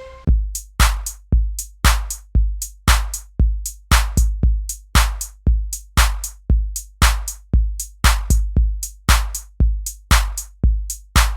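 Background music: a steady electronic drum-machine beat of deep bass kicks with sharp hits, about two a second, some of them doubled.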